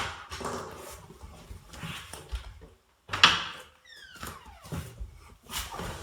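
A domestic cat meows once, a single falling call about four seconds in, among knocks and handling rustles. There is a sharper knock just after three seconds.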